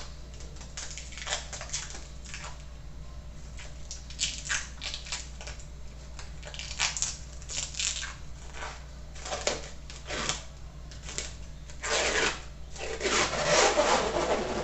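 Plastic cling film being pulled and crinkled over a plate, irregular crackling rustles that grow loudest and most continuous near the end.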